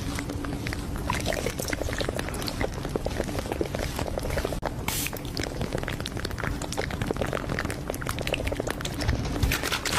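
Fridge being cleaned by hand: wet wiping and squishing with many small clicks and knocks, and a short spray hiss about halfway and again near the end.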